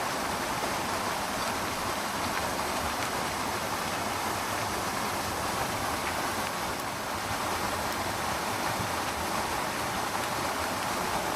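Small waterfall rushing steadily, an even wash of falling water with no breaks.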